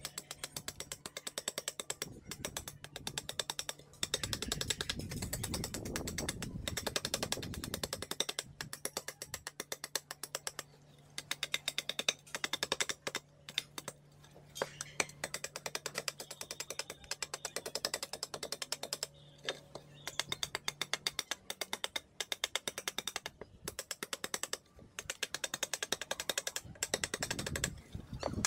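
Rapid, light chopping of a cleaver-like blade into a wooden bowl blank, carving it to shape. The quick, sharp wooden ticks come several to the second, with a few short pauses.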